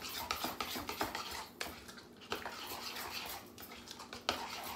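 Kitchen utensil clinking and scraping against a bowl as thick yogurt sauce is worked, with a quick run of small clicks.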